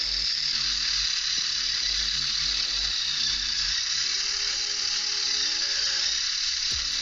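Small electric motor driving a scale-model truck's gear train and spinning a wheel: a steady, high-pitched whir.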